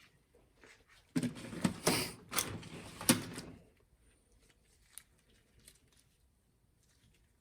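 A couple of seconds of clattering and rustling as small carburetor parts and tools are handled on a workbench, with several sharp knocks and clicks, then only faint ticks.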